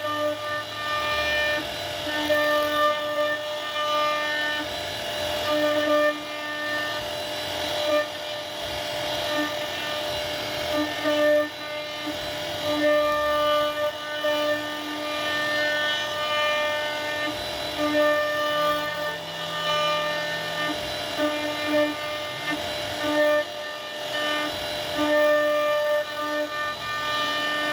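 CNC router spindle whining at a constant high speed while it carves wood, the cutting noise swelling and easing every second or so as the bit moves through the carving.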